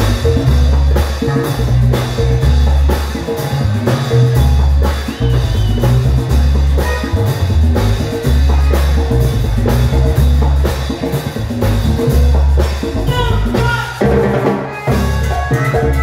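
Live vallenato band playing: button accordion melody over a heavy bass guitar line and a steady drum and percussion beat.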